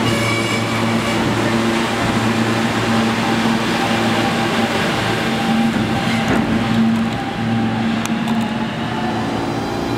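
R160 subway train departing the station, its running noise easing off about seven seconds in as it leaves, over a steady low hum.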